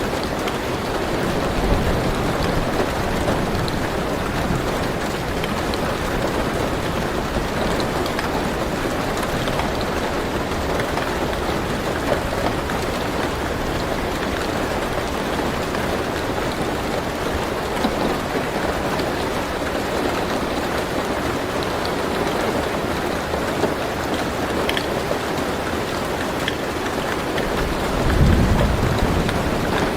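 Steady heavy rain falling on a car's roof, heard from inside the car, with a few sharper drop hits. A low rumble of thunder swells briefly near the end.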